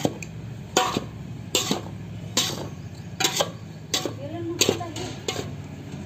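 Metal spoons knocking and scraping against a large metal bowl while stirring a heap of dry spice powder, with a sharp clink about every three-quarters of a second.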